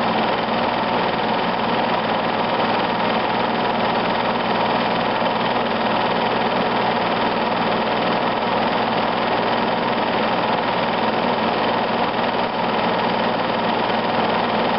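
Home-movie film projector running with a steady mechanical whir and hum.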